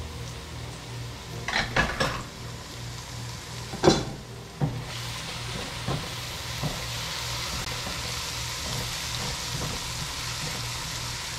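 Onions, garlic paste and chopped tomato sizzling in oil in a pan, with a few clinks and knocks of metal against the pan in the first five seconds, the loudest about four seconds in. From about five seconds the sizzling settles into a steady hiss.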